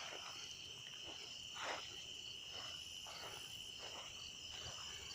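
Crickets chirping in a steady high trill, with a few faint soft rustles, the clearest about a second and a half in.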